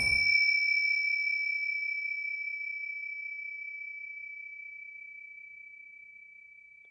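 A meditation bell struck once, ringing a single high, clear tone that fades slowly over several seconds.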